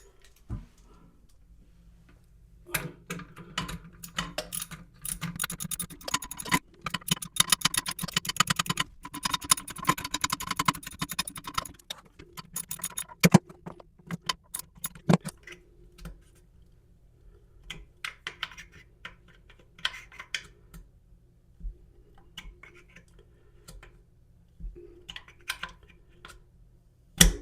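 Ratchet wrench with a 9/16 socket clicking as it tightens the breakaway nut on a toilet seat's mounting bolt. Fast runs of clicks come first, then slower scattered clicks, and a single sharp click near the end.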